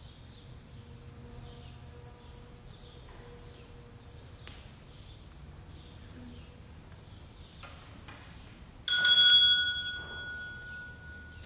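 A small bell struck once about nine seconds in, ringing with a clear high tone that fades over a couple of seconds: the signal that Mass is beginning. Before it, only a faint background.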